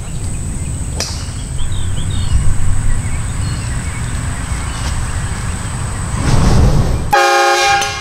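Portable train horn blasting a loud multi-note chord for under a second near the end, cutting off abruptly. A loud low rumbling noise comes just before it.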